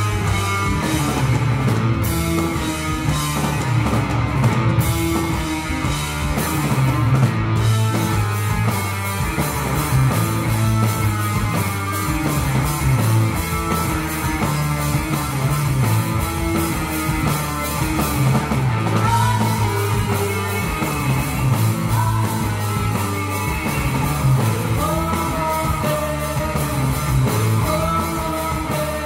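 A hard rock band playing live: electric guitar, drum kit and keyboard at a steady beat. A woman's lead vocal comes in over the band in the second half.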